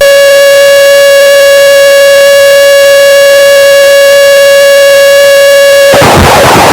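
Harsh noise music: a very loud, steady buzzing tone with many overtones held for about six seconds, then cut off abruptly by a dense wall of crackling noise near the end.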